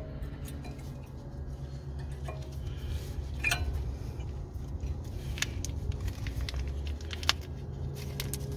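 Light metallic clicks and taps as new brake pads with metal spring clips are fitted into a car's front caliper bracket, with a few sharp clicks over a steady low hum.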